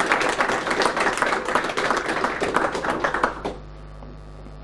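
Audience applauding. The clapping dies away about three and a half seconds in, leaving only a low steady hum in the room.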